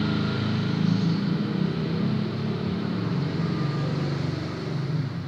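A motor vehicle engine running, low and steady, dropping in level near the end.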